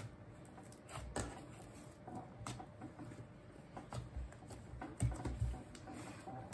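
Pink bubble-gum cloud butter slime being kneaded and squeezed by hand: faint, irregular little pops and clicks, the loudest a few low knocks about five seconds in.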